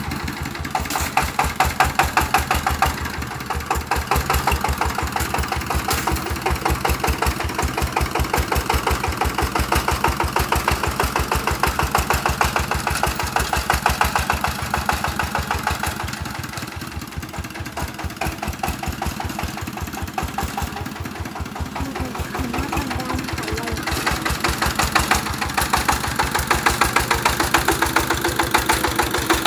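Single-cylinder diesel engine of a two-wheel walking tractor running under load as it pulls a plough through soil, with a rapid, even knocking beat. Its level drops for a few seconds past the middle, then rises again.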